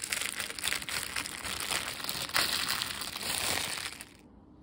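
Plastic cling wrap crinkling as it is pulled off an aluminium foil loaf pan, stopping shortly before the end.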